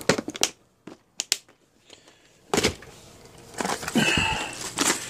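Hard plastic tackle boxes being handled: a few light clicks, a louder knock about two and a half seconds in, then scraping and rustling as one box goes into the backpack and another comes out.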